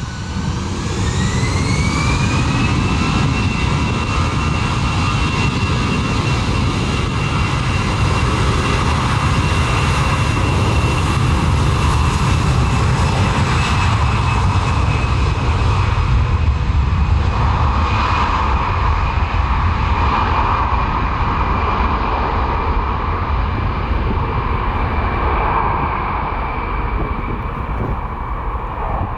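Jet aircraft engine spooling up, its turbine whine rising in pitch over the first few seconds and then holding a steady high whine over a deep rumble, easing off slightly near the end.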